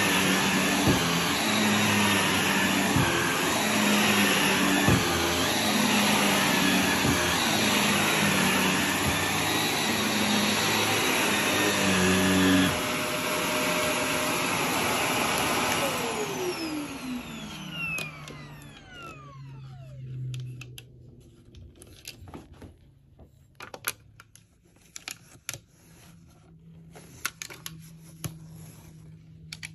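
Shark NV380 upright vacuum cleaner running over carpet, loud and steady, then switched off a little over halfway through, its motor whine falling in pitch as it spins down. Scattered light clicks and knocks follow.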